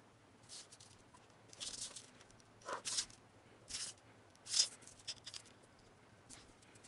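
Ballpoint pen scratching across paper in a series of short, irregular strokes, with the sheet and a metal ruler being shifted on a hard tiled floor.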